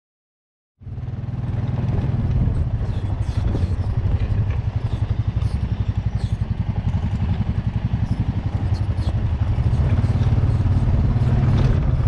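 Honda Foreman ATV's single-cylinder four-stroke engine running at a steady pace on a dirt trail, with a fast low pulsing exhaust note and scattered light clattering over the bumps. The sound cuts in suddenly about a second in.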